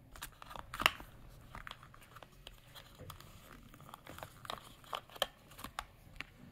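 Cardboard accessory box and packaged charging cable being handled: light crinkling with scattered clicks and taps, the sharpest about a second in.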